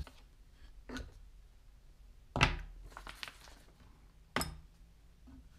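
Workbench handling noise: four short knocks as things are set down on a wooden stand, the loudest about two and a half seconds in, followed by a brief rustle of paper sheets.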